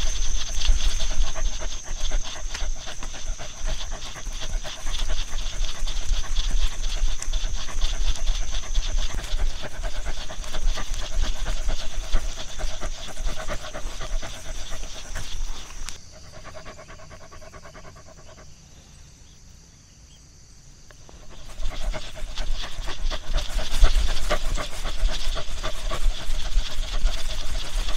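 Dog panting rapidly and steadily, dropping away for about five seconds partway through before starting again.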